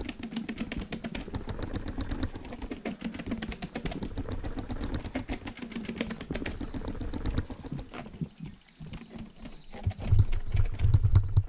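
Rapid, even ticking and rattling from a mountain bike rolling down stone steps. About ten seconds in, a louder low rumble takes over.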